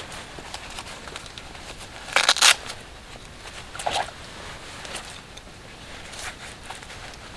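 Rustling and handling noises of a jacket and hands, with a brief burst of louder rustling about two seconds in and a shorter scrape near four seconds.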